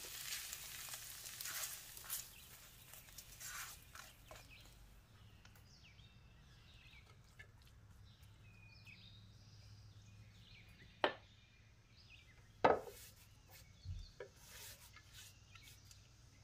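Hot fried ground meat sizzling and scraping as it is pushed from the skillet into a ceramic bowl, dying away over the first few seconds. Then quiet spatula stirring with a couple of sharp taps, and faint bird chirps in the background.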